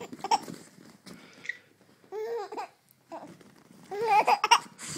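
A baby laughing and babbling in short bursts, with the longest run about four seconds in.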